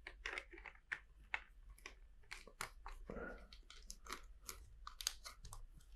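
Faint, irregular clicks and light rattling of plastic LEGO bricks being handled and fitted during a build.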